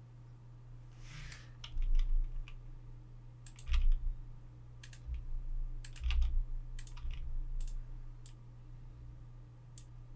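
Computer keyboard keys and mouse buttons clicking, about a dozen irregular clicks, some in quick pairs, a few with a dull knock under them, over a steady low hum.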